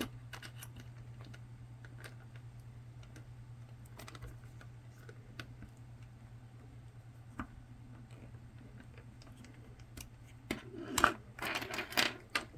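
Scattered small clicks and scrapes of a hand tool prying at hard, solid plastic, the SD card reader housing of a chart plotter, turning into a louder burst of scraping clicks near the end. A steady low hum runs underneath.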